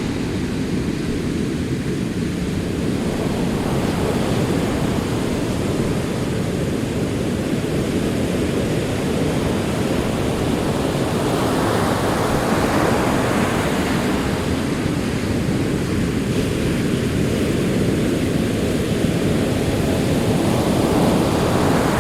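Ocean waves breaking on a shore, a continuous surf wash with slow swells as individual waves build and break, one about halfway through and another near the end.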